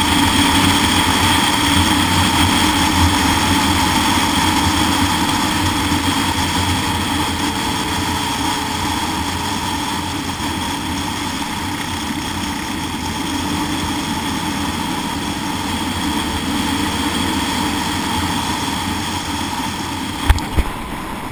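Motorcycle engine running at a steady cruising speed, with wind rushing over the bike-mounted camera's microphone. Near the end come two sharp knocks as a gloved hand hits the camera.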